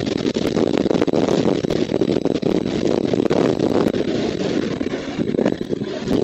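Wind buffeting an outdoor nest-camera microphone: a steady, rough rush that swells and dips, with a few faint clicks.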